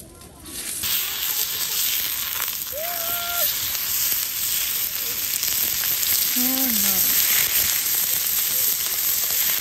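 Thick steak sizzling on a grill grate over a wood fire: a loud, steady hiss that cuts in about a second in.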